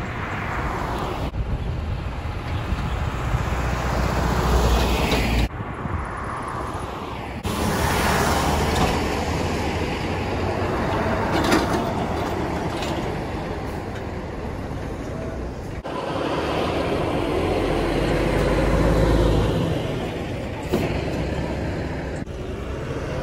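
Heavy road traffic: diesel trucks, including a tractor-trailer pulling an empty container chassis, along with cars and a bus passing through an intersection with engine rumble and tyre noise. The rumble swells as big trucks go by, and the sound changes abruptly several times.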